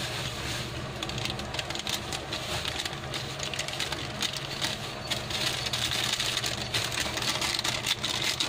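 Fish broth boiling in a wok, with a dense, irregular crackle of small popping bubbles that grows busier in the second half, over a steady low hum.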